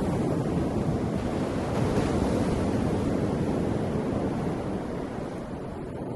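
Ocean surf washing continuously in a dense, rushing wash of breaking waves, easing off gradually over the last couple of seconds as a wave recedes.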